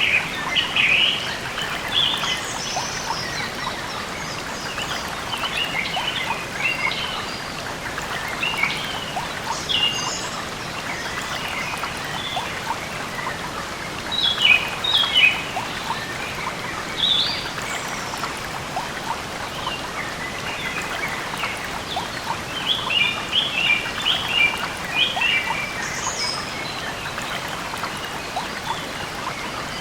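Birds chirping in short runs of quick, high notes, scattered through the whole stretch, over a steady rushing background noise.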